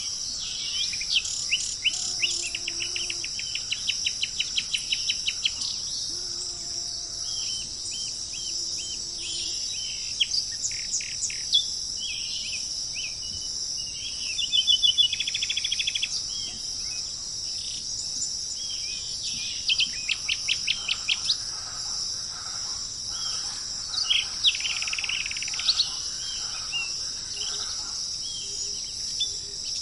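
Several songbirds chirping and singing in rapid trills of repeated notes, over a steady high-pitched chorus of insects.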